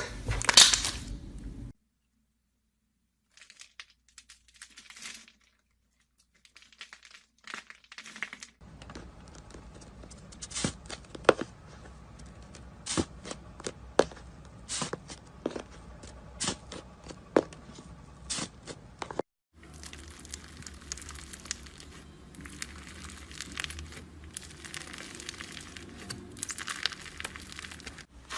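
Slime being squished, stretched and folded by hand, giving sticky clicks, pops and crackles. The sound comes in separate clips with abrupt changes, including a nearly silent stretch of several seconds near the start.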